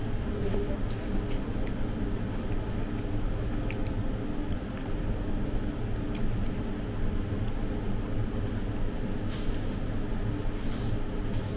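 Paper wrapper of a cone ice cream crinkling and tearing as it is peeled off, in short crackles, with the busiest rustling near the end, over a steady low background rumble.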